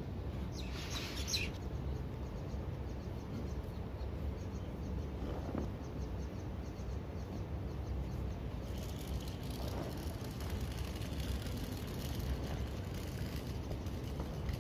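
Steady outdoor background rumble, with a brief high bird chirp about a second in.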